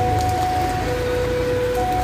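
Two-tone railway crossing alarm, a lower and a higher tone taking turns, each held just under a second, warning of an approaching train. Steady heavy rain hisses underneath.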